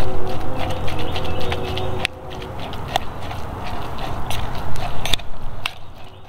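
A camp utensil stirring food in a small steel pot on a twig-burning stove: scraping with sharp clinks against the pot at irregular intervals, over a low rumble that drops off about two seconds in.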